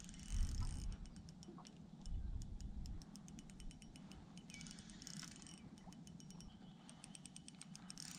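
Fishing reel being wound in, a fast, faint, even ticking. Gusts of wind rumble on the microphone during the first three seconds.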